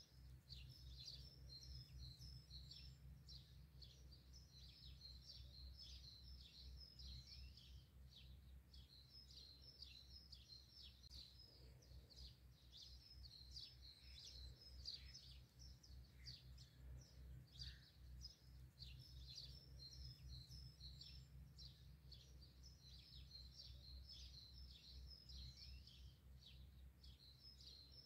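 Many small birds twittering and chirping in a dense, continuous chorus, heard faintly over a low steady rumble.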